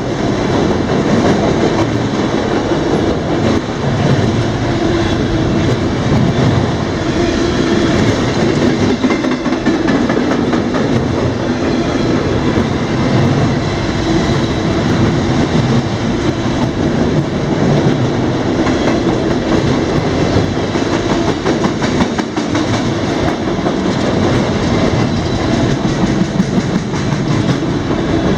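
Freight train cars rolling past at steady speed, a continuous heavy rumble of wheels on rail with a clickety-clack of wheels over rail joints.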